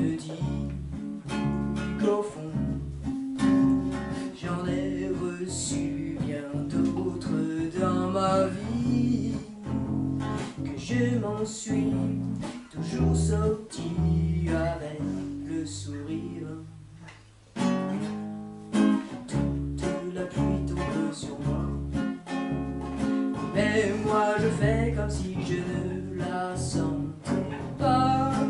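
Two acoustic guitars playing a song together, chords over a plucked bass line. The playing almost stops for a moment about two-thirds of the way through, then starts again.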